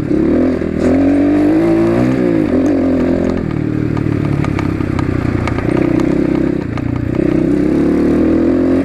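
Asian Beast 250 dirt bike engine, loud, under way. It revs up and drops back a few times in the first three seconds or so, then runs more evenly.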